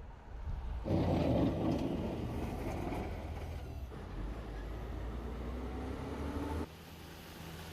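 Motor vehicle engine rumble and road noise, getting louder abruptly about a second in and dropping abruptly near the end.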